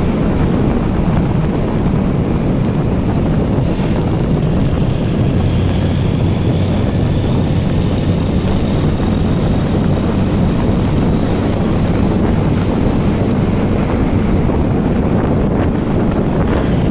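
Loud, steady rush of wind on the microphone of a moving motorcycle, with the motorcycle's engine running steadily underneath.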